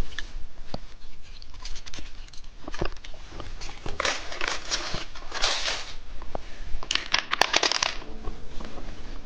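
Plastic snack wrapper crinkling and tearing in the hands, with scattered sharp crackles and louder rustling stretches about four and seven seconds in, as a cheese stick is unwrapped.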